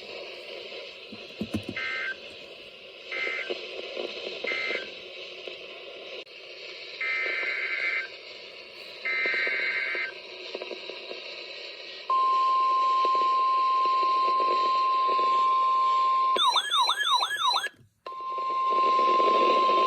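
NOAA Weather Radio alert signalling over a hissy radio channel: three short bursts of two-tone SAME data that close the previous message, then longer SAME header bursts announcing a new warning, then the steady 1050 Hz warning alarm tone. Near the end the steady tone is briefly broken by a warbling tone and a moment of silence, then it resumes.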